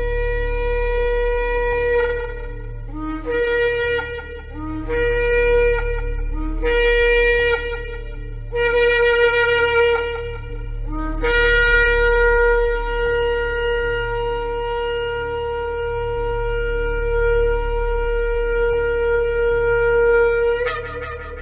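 Shofar being blown: several short blasts, each starting low and jumping up to the main note, then one long held blast of about nine seconds that breaks upward in pitch at its end. A low steady hum runs beneath.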